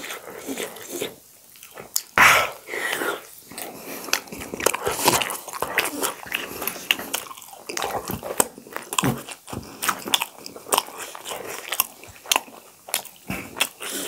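Close-miked eating: two people biting and chewing steamed momos and crisp pani puri, a dense run of short wet smacks and clicks with some crunching.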